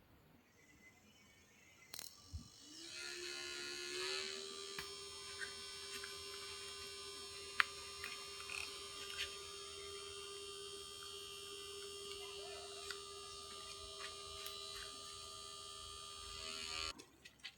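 Small electric motor of a homemade drilling machine switched on with a click, spinning up within a second or two to a steady whine, then cut off suddenly near the end, with scattered light ticks while it runs.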